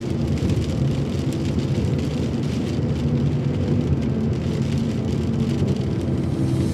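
Steady traffic noise on a rainy street: a low engine hum with a faint patter of rain.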